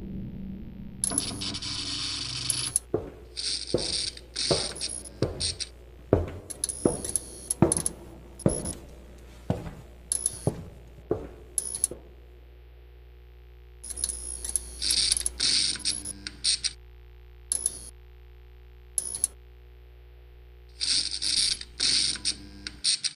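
Sound-design score: irregular sharp clicks and ticks and short bursts of static hiss over a low steady drone. Everything cuts off just before the end.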